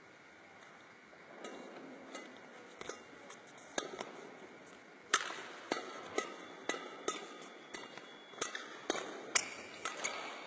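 Badminton racket strikes on a shuttlecock: a few light hits, then from about five seconds in a quick run of sharp smacks about every half second.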